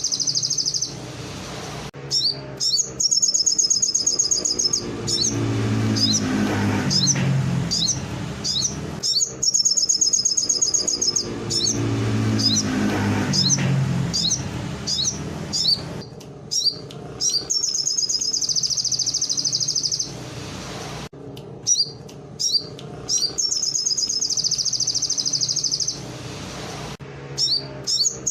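A sogon songbird singing canary-style phrases: bursts of fast, high rolling trills a few seconds long, alternating with runs of short sharp chirps. The trill-and-chirp pattern comes round again several times, with a low rumble underneath in places.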